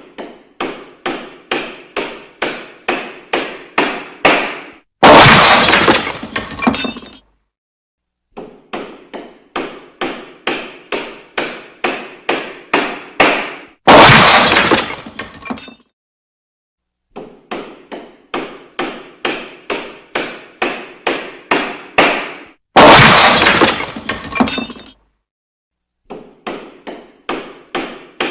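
Renovation sound effect repeated three times: a run of about a dozen hammer blows, each louder than the last, ending in a loud crash of something breaking that rings on for about two seconds, then a second of silence.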